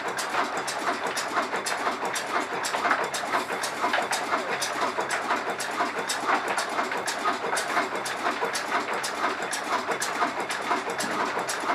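Old Ruston Hornsby stationary engine running at a steady speed, with a fast, even clatter of ticks and knocks.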